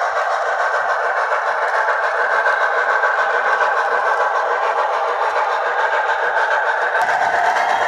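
Steam locomotive sound from a Soundtraxx Tsunami2 sound decoder, played through an HO scale model's small speaker: a steady, rapid steam exhaust with a thin, tinny tone. About seven seconds in, a deeper sound joins it.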